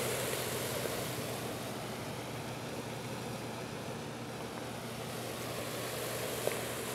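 Salted water in a bucket boiling hard as 120-volt AC passes through it between two metal electrodes: a steady rushing, bubbling churn with a low hum underneath.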